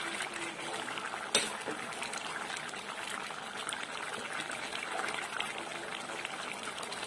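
Curry gravy with peas and paneer bubbling at a simmer in a pot while a ladle stirs through it, a steady wet bubbling and sloshing with a sharp click about a second and a half in.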